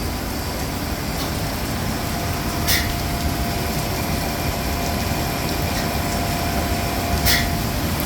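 Hydraulic servicing pump running steadily as it fills a Boeing 767-400's center hydraulic reservoir, with a faint steady whine through the middle and two brief sharp clicks about four and a half seconds apart.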